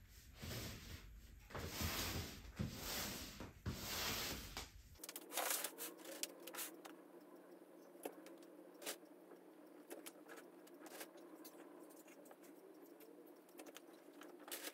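Laundry being handled: irregular rustling and knocking for about five seconds, then a quieter stretch of scattered faint clicks over a low steady hum.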